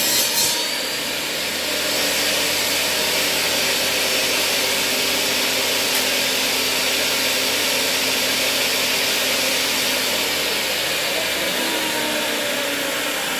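Stanley benchtop table saw running steadily with no load. A cut through a wooden board finishes a fraction of a second in.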